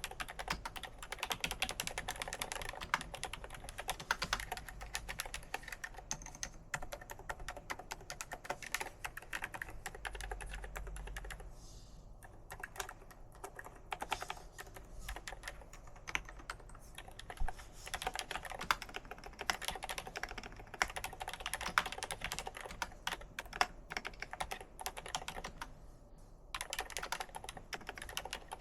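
Typing on a Royal Kludge S98 96% wireless mechanical keyboard: a rapid, continuous run of key clicks, thinning out briefly about twelve seconds in and again near the end.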